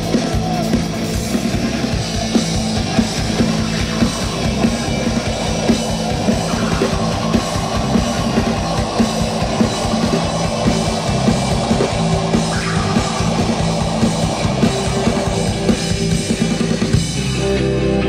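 Live rock band playing loudly, with a drum kit hitting hard and electric guitars. Near the end the drumming stops and a held guitar chord rings on.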